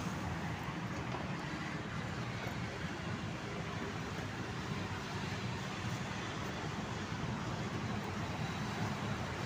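Steady street traffic noise, an even low rumble of passing cars and motorbikes with no single vehicle standing out.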